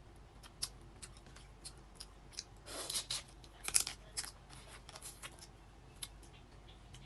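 Close-miked eating of boiled crab: shells cracking and crunching, with sharp wet clicks from the mouth. The loudest crunches come about three and four seconds in.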